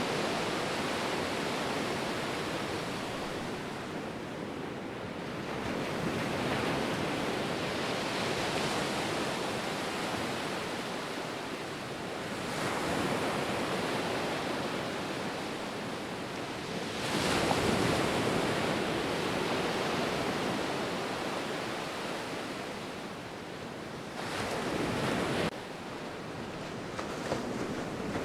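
Ocean waves breaking and washing ashore in a steady rush, swelling with a new surge every five or six seconds and ebbing between.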